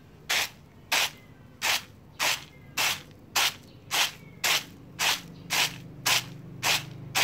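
Shelled roasted peanuts tossed rhythmically in a plastic basket, each toss and landing giving a short swish about twice a second. This is winnowing: the loose red skins are blown out while the kernels fall back into the basket.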